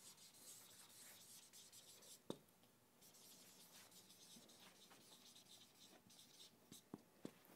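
Marker pen writing on a whiteboard: faint, repeated short scratchy strokes as letters are drawn, with a few light clicks.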